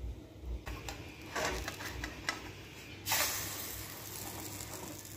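A metal spatula scrapes and clicks under a pancake in a nonstick frying pan. About three seconds in, the pancake is flipped, and its raw batter side meets the hot pan with a sudden sizzle that fades to a steady hiss.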